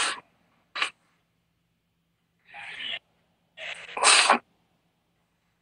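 A woman crying, with short, sharp sniffs and nose-blowing into a cloth, four bursts in all, the last one the longest and loudest.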